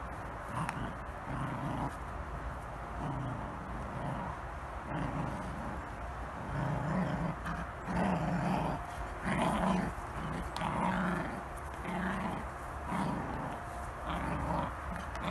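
Two puppies growling in play while tugging a rubber shoe between them: a string of short growls, about one a second, louder and closer together from about six seconds in.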